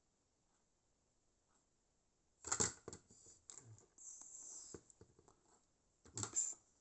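Small hard objects handled on a work surface: two short bursts of clicking and clatter, with a brief scratchy hiss between them.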